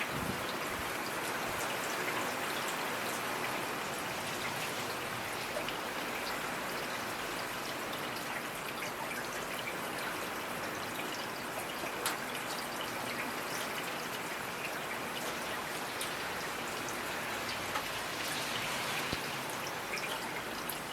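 Steady rainfall, an even hiss of rain with scattered individual drops ticking on a surface, one a little sharper about twelve seconds in.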